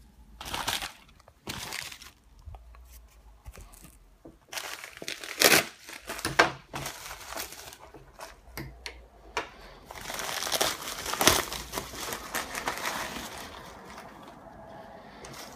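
Plastic poly mailer being cut open with scissors and then crinkled and rustled in irregular bursts as the package is unwrapped, loudest about halfway through and again around two-thirds of the way.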